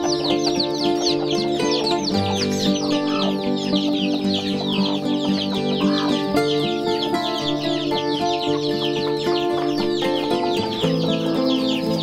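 Many chicken chicks peeping continuously: a dense stream of short, high, falling cheeps, over background music of held chords that change every few seconds.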